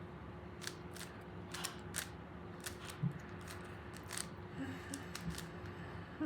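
Rubik's Cube layers being twisted by hand: an irregular run of sharp plastic clicks, about ten in six seconds, over a low steady hum.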